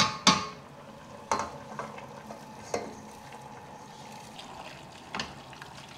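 Pre-cooked lentils scraped with a wooden spoon out of a stainless steel pot into a pot of vegetables and broth. There are a few short knocks of spoon against metal over a faint steady hiss.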